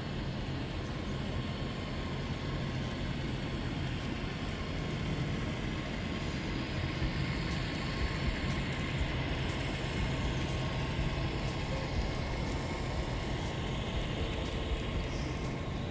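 A train running by: a steady low rumble with faint clicks of wheels on rail joints.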